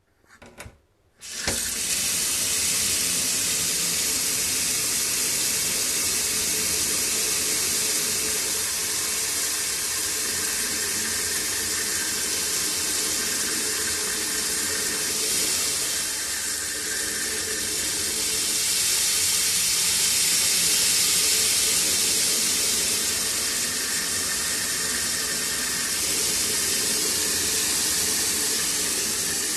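Three-way kitchen mixer tap turned on: after a couple of brief knocks, water starts suddenly about a second and a half in and runs steadily with a loud hiss and a faint whine. This is the noise the tap makes when mixing.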